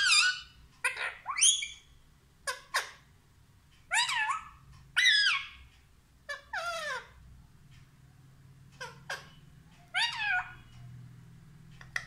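Pet rose-ringed parakeet vocalizing in short, separate calls, about eight of them with pauses between, each bending up and down in pitch.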